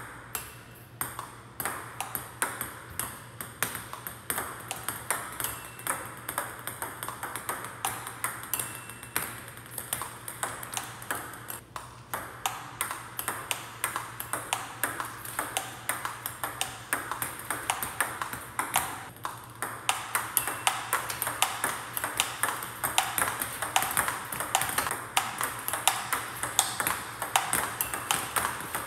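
Table tennis ball clicking off rubber paddles and the table in a continuous multiball rally, several hits a second. The strokes start light, as weak-impact practice, and grow louder and harder toward the end as the hitting moves up to stronger impact.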